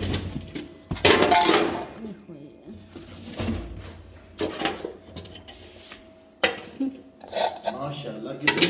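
Rummaging through stored household things: a thin plastic bag crinkling and containers knocking and clinking as they are moved. There are several separate clatters, the loudest and longest about a second in.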